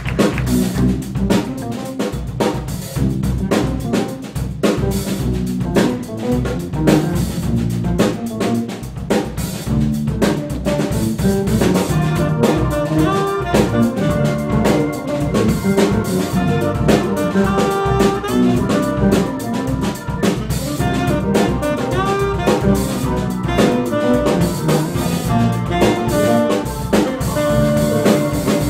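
Small jazz band playing, with the drum kit most prominent: busy snare rimshots and bass drum. About twelve seconds in, sustained pitched notes from the piano and other instruments grow stronger alongside the drums.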